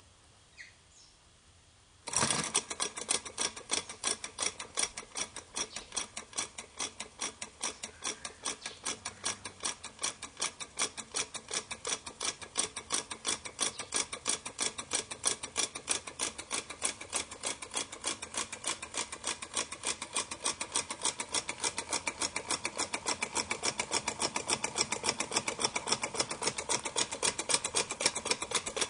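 Homemade soda-can engine with a wire crankshaft and CD flywheel running, its crank and linkage making a rapid, even clatter. The clatter starts abruptly about two seconds in and grows faster and louder.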